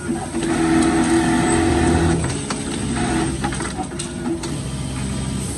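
Automatic label sewing machine running: a steady pitched hum, loudest for about the first two seconds, with a few sharp clicks after that.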